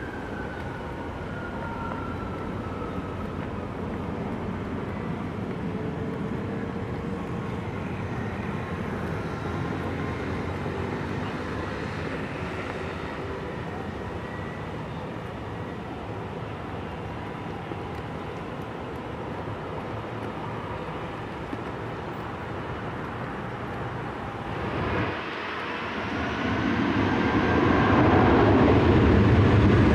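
Jet airliner engine noise: a Boeing 747 climbing away after takeoff, its engine whine slowly falling in pitch, fading into a steady distant jet rumble. Near the end a louder jet roar builds up as an Airbus A320-family jet rolls along the runway close by.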